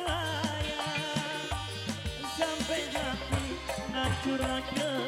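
Amplified singa dangdut band music: a hand-drum rhythm over a bass line, with a wavering lead melody.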